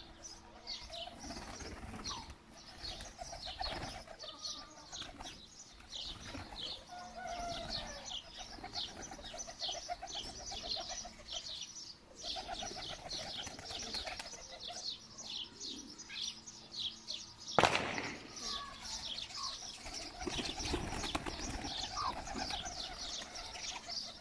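Domestic pigeons cooing and flapping their wings, over fast, continuous high-pitched bird chirping. One sharp, loud clap comes about two-thirds of the way through.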